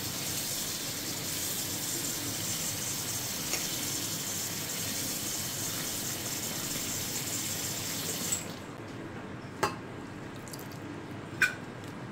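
Kitchen tap running water into a metal bowl of chopped banana flower as it is rinsed by hand. The tap is shut off abruptly about eight seconds in, followed by two short knocks.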